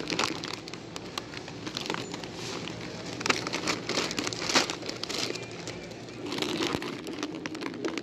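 Large plastic bag of potato chips crinkling and rustling in the hand, in irregular bunches, as it is picked up and set into a shopping cart.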